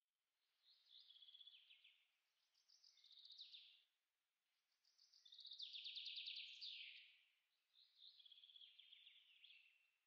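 Faint songbird song: four short trilled phrases, each stepping down in pitch, the loudest in the middle.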